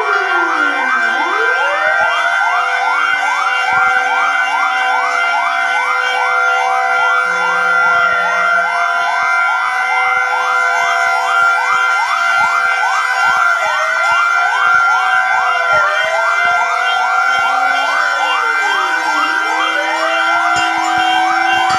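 Several fire engine and emergency vehicle sirens sounding together, loud and continuous. A fast yelp repeats a few times a second over slower wails that fall and rise again.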